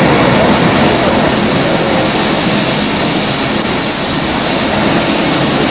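A steam-hauled train on the move, heard from an open carriage window as it passes a line of freight hopper wagons on the adjacent track: a loud, steady rushing noise.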